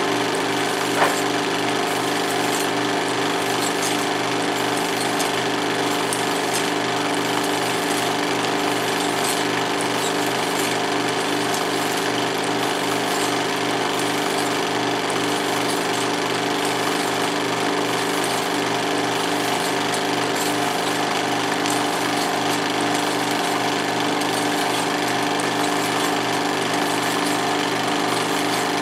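16mm film projector running: a steady, rapid mechanical clatter of the film advancing through the gate over the hum of its motor, with a single sharp click about a second in.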